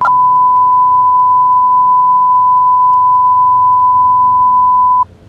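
A single steady 1 kHz sine tone, an emergency-broadcast alert tone. It is held for about five seconds and then cuts off abruptly.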